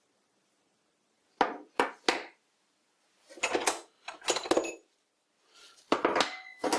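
Small metal tools clinking and clattering as they are taken out of a box and set down. The sound comes in several short bursts starting about a second and a half in, and some of the knocks ring briefly.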